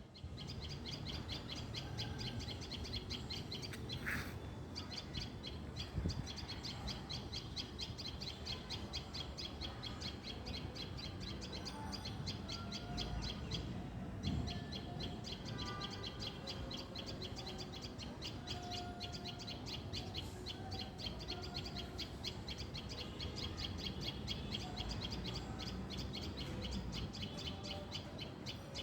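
Birds chirping continuously: a dense, fast run of high chirps throughout, with scattered short whistled calls lower in pitch.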